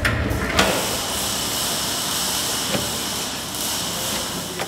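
A steady hiss with a sharp knock about half a second in, as a wheeled waste-oil drain caddy is pulled into place beneath a car on a lift.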